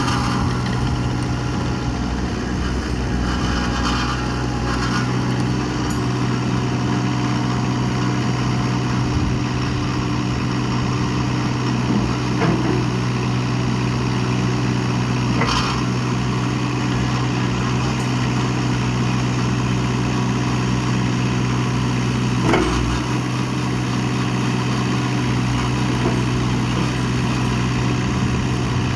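Diesel engine of a Vermeer S925TX stand-on skid steer running steadily, with a few short clanks from the machine.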